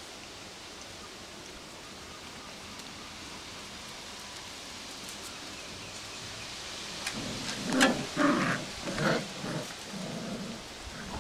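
Steady outdoor hiss, then, in the last few seconds, a string of short growls and yaps from Welsh springer spaniel puppies wrestling.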